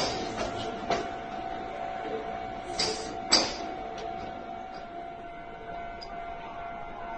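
Railway level-crossing warning alarm ringing steadily. A few sharp clacks sound over it, near the start, about a second in and twice around three seconds in, the last the loudest.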